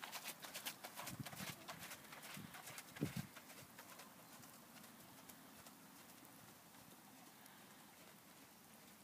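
Horse's hoofbeats on the arena surface, fading over the first three or four seconds as the horse moves away, leaving only a faint steady hiss.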